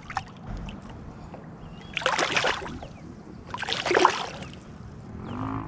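A hooked trout thrashing at the surface beside the kayak, making two loud splashes about a second and a half apart as it fights the line.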